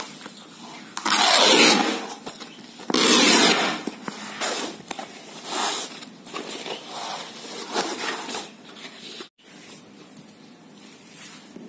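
Old painted canvas being torn by hand: two loud rips, the first about a second in and the second a couple of seconds later, then shorter, weaker tearing and crackling of the stiff painted cloth.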